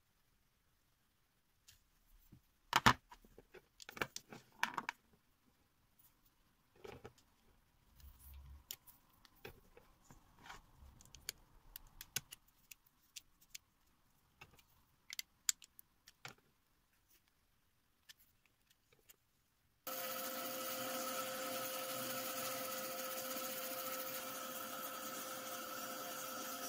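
Clicks and small metallic clinks as the handpiece of a flexible-shaft rotary tool is handled and a sanding drum is fitted into its collet, the sharpest click about three seconds in. About twenty seconds in the rotary tool switches on and runs with a steady whine, its sanding drum spinning to sand a cured epoxy resin ring.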